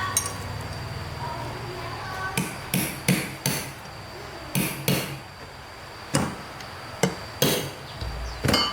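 Hammer blows, about ten sharp strikes at an irregular pace, starting a couple of seconds in.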